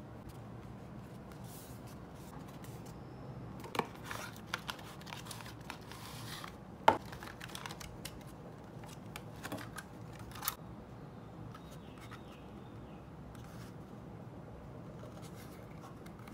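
Clear plastic clamshell packaging being handled and pried open by hand: scattered clicks, snaps and crinkles, the loudest a sharp snap about seven seconds in.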